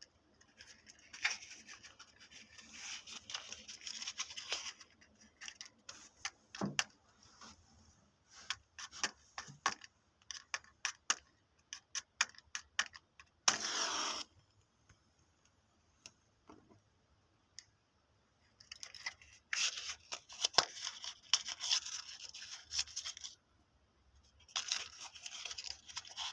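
Matches and a matchbox being handled and struck: spells of scratchy rasping, scattered sharp clicks, and one short, loud rasp about halfway through.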